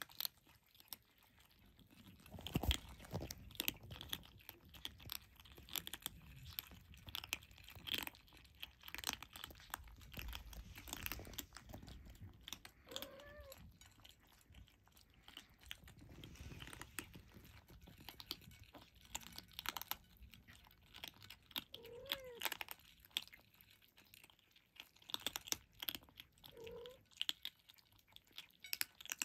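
Turkish Angora kittens crunching dry kibble from a shared plate: many quick, irregular crunches and chewing clicks, with three brief squeaks scattered among them.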